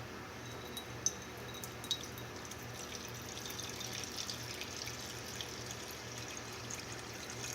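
Two light clicks, then from about two and a half seconds in a thin trickle of acetone poured from a bottle, splashing into a bowl of liquid.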